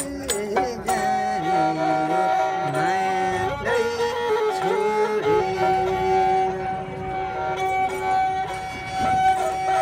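Nepali sarangi, a small carved bowed folk fiddle, playing a folk melody in long held notes, with a man's voice singing along over the first few seconds.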